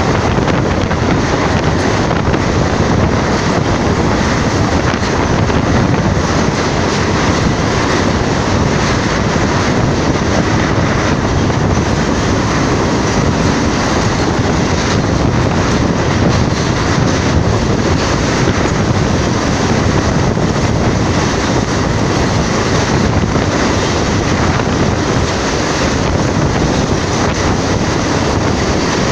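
Steady, loud rush of wind buffeting the microphone held at the window of a moving passenger train, mixed with the train's running noise.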